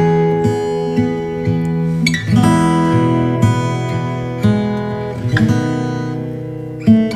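Background music: acoustic guitar playing chords with new notes plucked about once a second, each ringing on.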